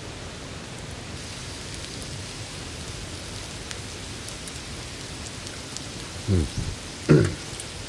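A steady rain-like hiss with faint, scattered crackles from a wood fire burning in a grill stand. Near the end come two short, low grunts that fall in pitch, about a second apart; the second is the louder.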